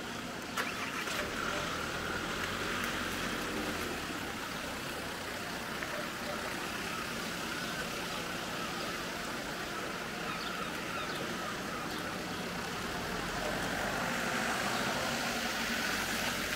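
Steady outdoor ambience: a faint, even mix of distant voices and background noise, with a sharp click about half a second in.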